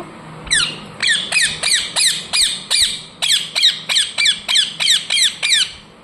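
Pet parrot squawking, a quick string of about fifteen short, falling, high-pitched calls at roughly three a second, given when asked to meow and taken by its owner as its version of a cat's meow.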